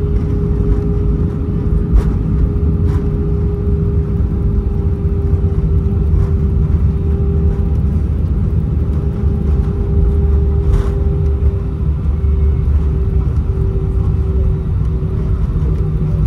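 Airbus A320 cabin noise on the ground, heard from a window seat beside the wing: a steady low rumble of the idling jet engines and rolling wheels, with a constant hum and a few faint clicks.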